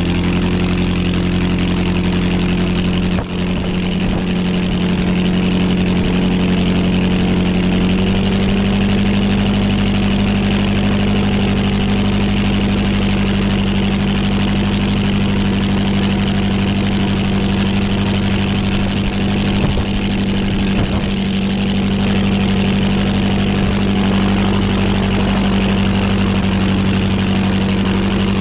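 Half-scale replica ENV Type F water-cooled V8 aero engine running steadily on a test stand, driving its propeller. The engine speed rises slightly about eight seconds in, after a brief dip in loudness about three seconds in.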